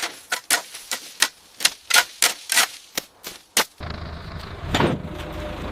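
A run of sharp, separate clicks, about three a second, with silence between them. After about three and a half seconds they stop and give way abruptly to a steady low hum, with one louder knock about a second later.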